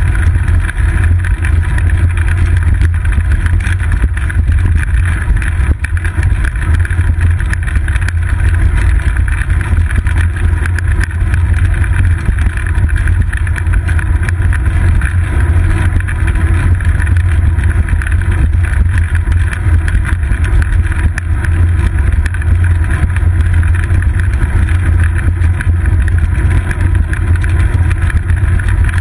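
Steady, loud low rumble and wind noise from a seat-post-mounted action camera on a moving bicycle: wind on the microphone and road vibration from the paved path.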